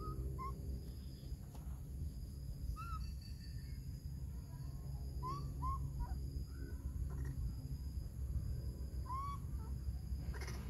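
Baby macaque giving short, high, arching coo calls, about seven spread through, over a steady low rumble.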